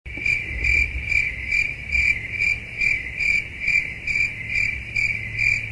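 Cricket chirping in an even rhythm, a little over two high chirps a second, the classic awkward-silence crickets sound effect laid over the clip.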